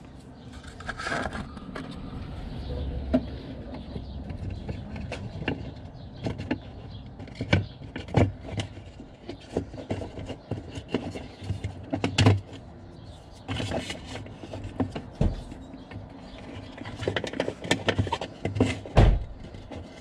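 Irregular clicks, knocks and scraping of hands working against the plastic panels and wiring of a camper's cassette toilet compartment while pushing a fuse back into its holder, with a few louder knocks, the loudest near the end.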